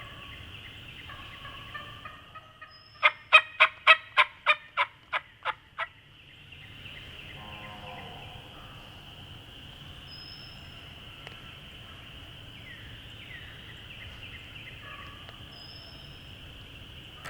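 Wild turkey yelping: a run of about ten loud, evenly spaced calls over three seconds, each a little quieter than the last, over a steady high background chorus. A few softer notes follow a couple of seconds later.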